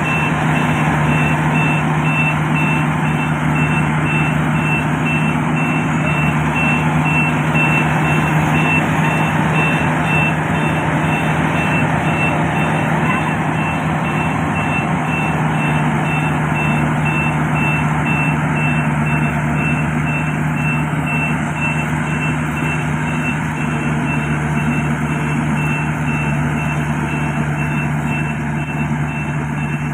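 Yanmar Y700 combine harvester running steadily, a dense mechanical din over a constant engine hum. A short high-pitched warning beep repeats evenly throughout.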